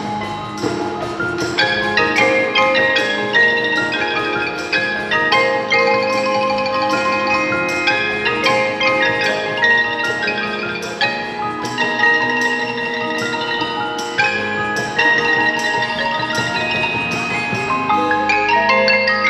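Percussion ensemble playing music on mallet instruments: many ringing pitched notes over a steady beat of sharp strokes.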